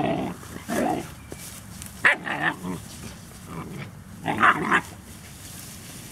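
Labrador puppies barking and growling in play, a handful of short yapping outbursts, the loudest about two and four and a half seconds in.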